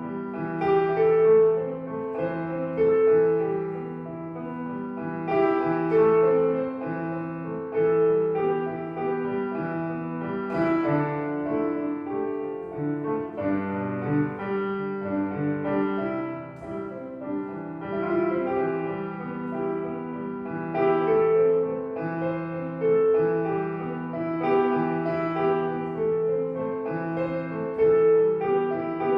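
Street piano being played: a melody over held bass notes and chords.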